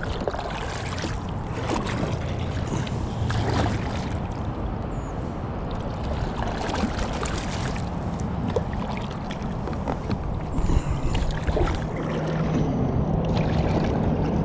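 Kayak paddles dipping and pulling through the water beside an inflatable tandem kayak, with irregular splashes and drips from the strokes, over wind on the microphone.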